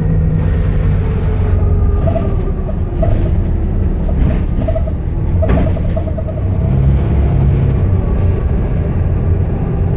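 Interior of a Metroline London bus (VPL602) on the move: the diesel engine and road noise rumble steadily, with the engine note shifting as it drives. Short rattles from loose interior fittings come and go, with one sharp click about halfway through.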